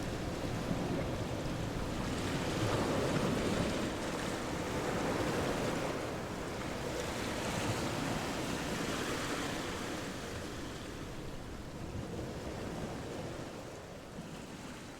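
Rushing water: a steady rushing noise that swells and eases, fading down near the end.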